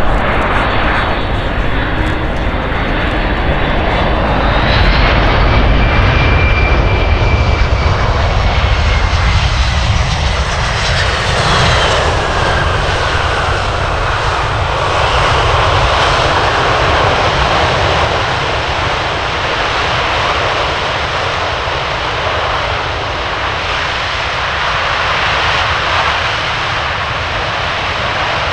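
Boeing C-17 Globemaster III's four turbofan jet engines running as it lands and rolls out: a steady jet roar with a high turbine whine that falls in pitch as the aircraft passes, around the middle.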